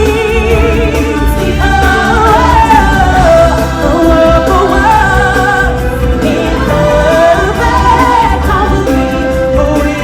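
Singers performing a song over band accompaniment, with vibrato on the held notes.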